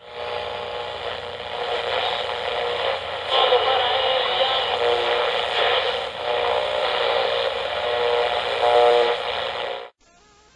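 Channel ident sound under an opening logo: a loud, dense mix of held tones and hiss that stops abruptly near the end.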